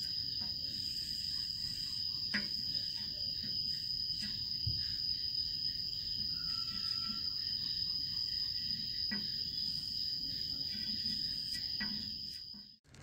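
White chalk scratching and tapping faintly on a dark board as outlines are drawn, under a continuous high-pitched insect trill that cuts off abruptly near the end.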